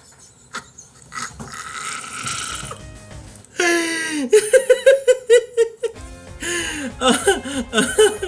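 A man laughing hard: breathy gasps at first, then a run of short laugh pulses, about three a second, from about halfway through. Low background music underneath.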